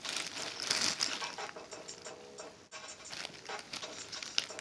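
Flathead screwdriver prying and scraping at the melted plastic of a clothing security tag, with irregular scraping, clicking and plastic crinkling.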